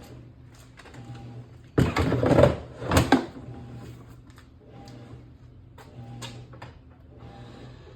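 Toughbuilt StackTech plastic toolbox being handled: a clatter about two seconds in, then a sharp click a second later. Behind it a laundry machine hums in a regular pulsing rhythm.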